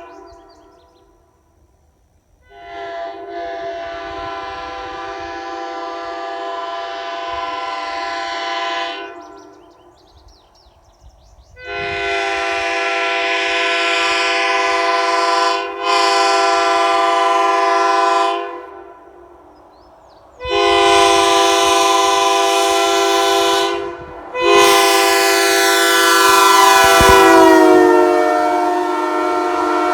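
Leslie Supertyfon S3K three-chime air train horn sounding a series of long blasts: one of about six seconds, one of about seven with a brief break near its end, a shorter one of about three and a half, then a final long blast. The whole chord of the final blast slides down in pitch near the end, as the horn goes past on a run-by.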